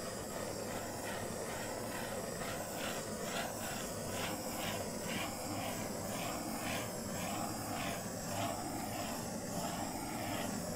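Handheld butane torch burning with a steady hiss as it is passed over wet acrylic pour paint.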